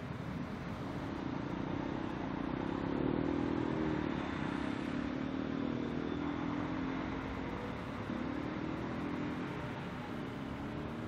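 City street traffic: a steady hum of passing vehicles, with one vehicle's engine note rising and falling, loudest three to four seconds in.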